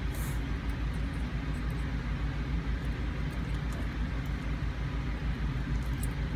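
Steady low mechanical hum, with faint short clicks scattered through it.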